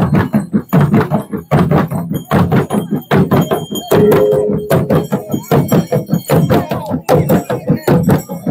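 Procession drumming: many hand-carried barrel drums beaten together in a steady beat, with a brass cymbal ringing over the strokes.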